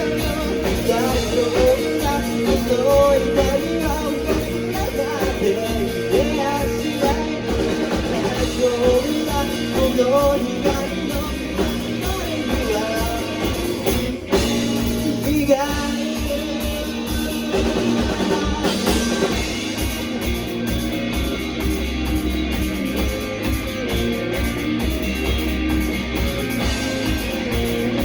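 Japanese rock band song: a sung vocal over drum kit and guitars. The singing is strongest through the first half; after a brief drop about halfway, the band plays on with a more instrumental guitar passage.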